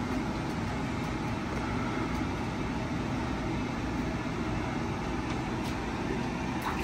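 A steady hum and hiss of background noise, even throughout, with a few faint clicks near the end.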